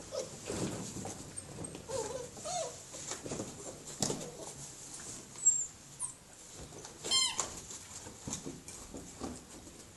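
A litter of puppies play-fighting: scuffling on the floor with short whines, a sharp knock about five and a half seconds in, and one loud high yelp at about seven seconds.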